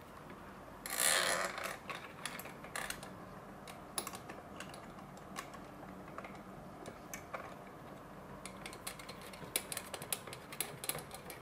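Light clicks and scrapes of small metal lock hardware being handled as a long bolt is fitted into the smart door lock's cylinder. There is a louder scrape about a second in, then scattered sharp clicks that come more often near the end.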